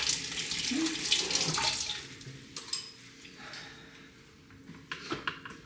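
Kitchen tap running into a sink, then shut off about two seconds in, followed by a few light clicks and knocks.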